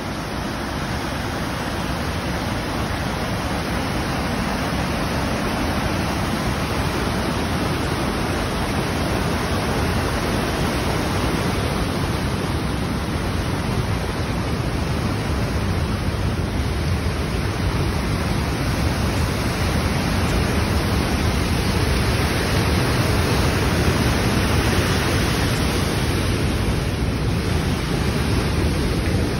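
Steady rushing roar of a rain-swollen river running in flood over rapids, mixed with heavy rain falling.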